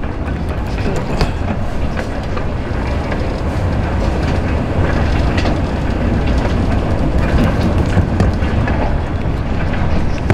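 Airport baggage carousel running: a steady low rumble from its sliding metal plates, with frequent light clicks and knocks as luggage rides around.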